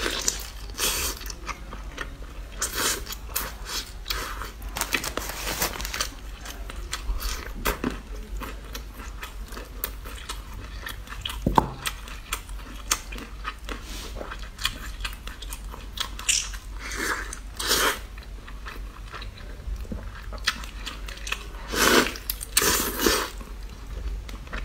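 Close-miked eating sounds: biting into, tearing and chewing braised chicken leg, with wet smacks and crunches and several louder bursts of biting. A steady low hum runs underneath.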